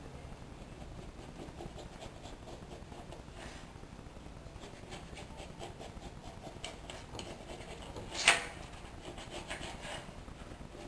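Gloved hands scraping and rubbing the leftover backing of wall carpet off a wall in repeated short strokes. There is one sharp, louder noise about eight seconds in.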